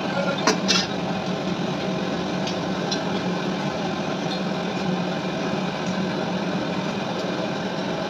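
A steady engine-like hum, with two sharp metal clinks about half a second in from tools knocking against the battery plates and steel jig.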